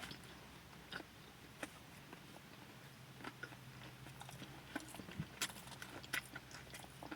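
A person chewing a sandwich with the mouth close to the microphone: faint, scattered wet clicks and soft crunches, with a faint steady low hum beneath.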